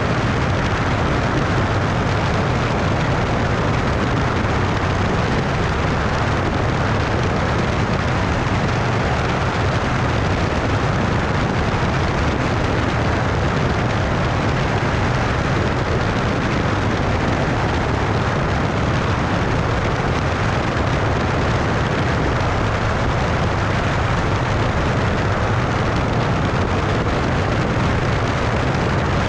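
Cessna 172 in cruise flight heard from an outside-mounted camera: a steady rush of wind over the microphone with a low engine and propeller drone underneath.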